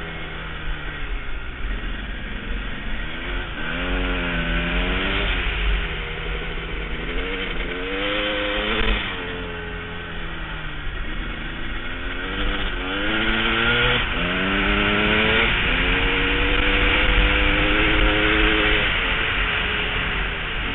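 KTM enduro motorcycle's single-cylinder engine accelerating and backing off again and again, its pitch climbing and dropping several times, under heavy wind rush on the bike-mounted microphone.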